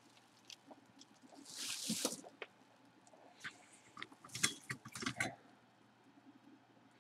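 Bubble wrap rustling and crinkling as it is pulled back by hand: a soft swish about two seconds in, then a run of sharp crackles between about three and a half and five seconds.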